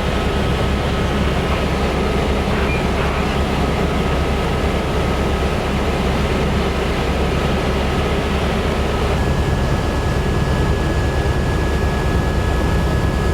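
News helicopter running, heard from inside: a loud, steady drone of turbine engine and rotor with a thin constant whine, and a second, higher whine tone joining about nine seconds in.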